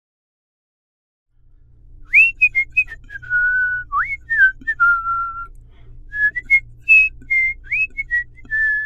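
Someone whistling a tune, a single clear note that slides up and down between short held notes, over a low rhythmic pulse with short clicks between the notes. The pulse comes in about a second and a half in, the whistling about half a second later.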